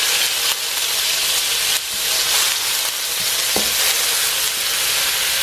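Minced garlic sizzling in hot oil in a wok: a steady frying hiss while a spatula stirs it.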